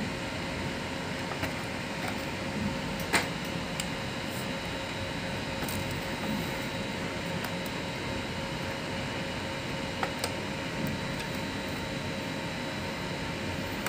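Light clicks and knocks of plastic parts being handled while a loose pulley is refitted in the paper path of an Epson L130 inkjet printer, over a steady background hum. The sharpest click comes about three seconds in, with two more close together about ten seconds in.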